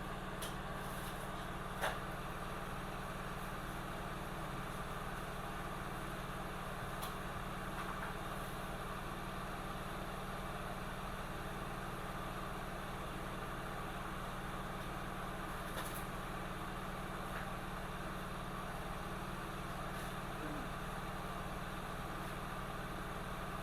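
Hot air rework station blowing steadily while a chip is being reflowed, a constant hum and airflow hiss with a few faint ticks.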